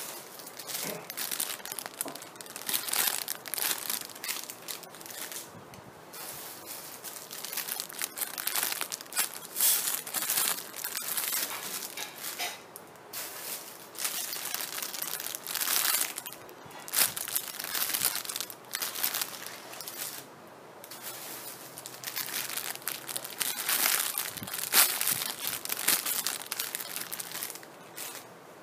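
Plastic squishy packaging crinkling as it is handled, in irregular bursts of crackling with short pauses between them.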